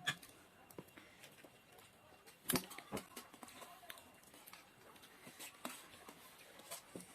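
Eating and table-handling sounds: scattered soft clicks and taps, with a louder knock about two and a half seconds in and another just after.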